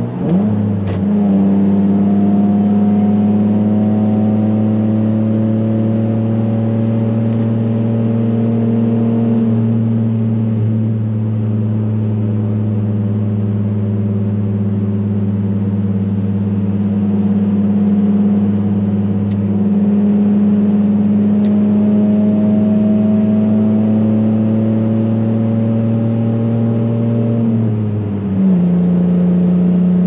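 Nissan VQ V6 engine running at a steady cruise, heard from inside the car's cabin as an even low drone. Its pitch dips and climbs back right at the start, and drops a step near the end.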